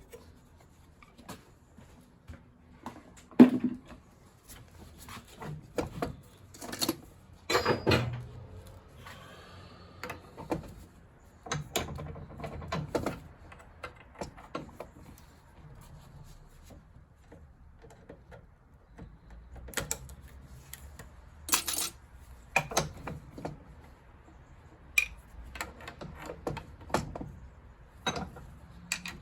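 Brass and copper boiler fittings being handled and taken apart by hand: irregular metallic clinks, clicks and knocks, with one sharp knock about three and a half seconds in.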